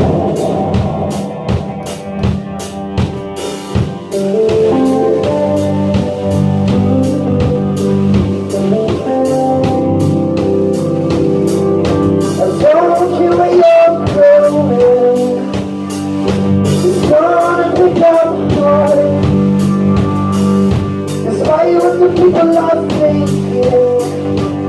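A band playing live, with a drum kit and sustained chords, and a voice singing in short phrases from about halfway through.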